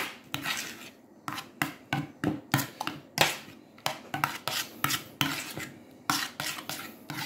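Metal spoon scraping and clinking against a small metal dish while stirring a thick fromage blanc and cream sauce, in short strokes about three a second.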